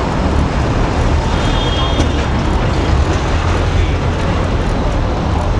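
Busy city street noise: steady traffic with voices mixed in, and a brief high tone ending in a sharp click about two seconds in.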